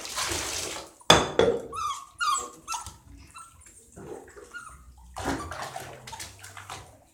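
A puppy whining and yelping in the bath, upset at being washed, with water splashing and a loud knock about a second in.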